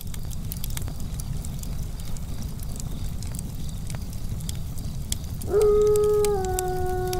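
A low, steady rumble with scattered faint crackles, then about five and a half seconds in a single long wolf howl that swells up quickly, holds, and slides slowly lower.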